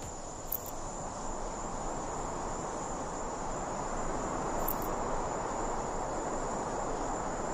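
Crickets chirring steadily, a summer field ambience with an even background hiss.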